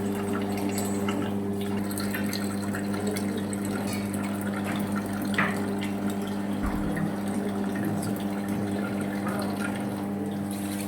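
Steady low mechanical hum, like a small motor running, with scattered crackles and clicks over it and a brief knock about seven seconds in.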